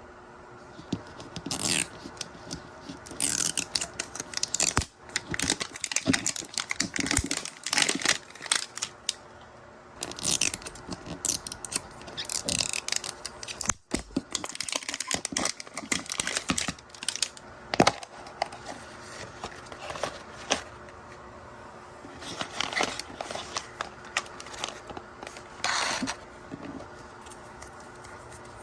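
Crinkly plastic packaging handled, torn and scraped in irregular bursts while a Mini Brands toy is unwrapped by hand, with one sharp snap about two-thirds of the way through.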